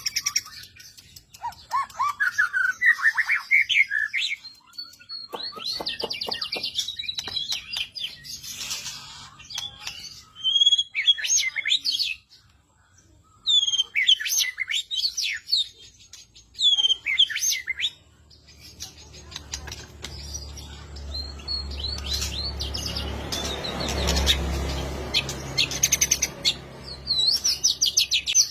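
Songbird song used as a training recording for caged birds: varied phrases of fast trills, sweeping whistles and chirps, with a short pause midway. In the second half a low hum and a rushing noise swell up under the song, peak, then fade.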